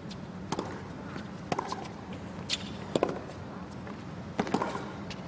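Tennis rally on a hard court: a serve struck about half a second in, then sharp racket-on-ball hits back and forth, roughly a second apart, over a low steady arena hum.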